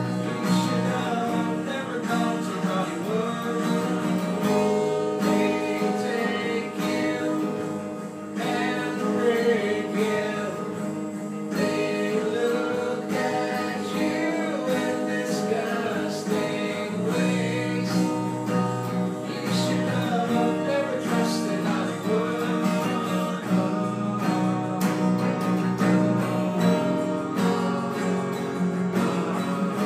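Acoustic guitar strummed, with a man singing along over it.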